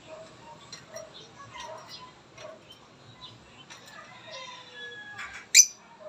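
Caged lovebirds chirping: a run of short, scattered chirps and squeaks, with one sharp, loud chirp near the end.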